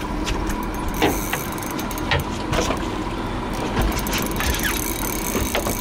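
A spinning reel cranked as a hooked mahi-mahi is brought to the boat's side and splashes, with scattered clicks and splashes over the low hum of idling outboard engines.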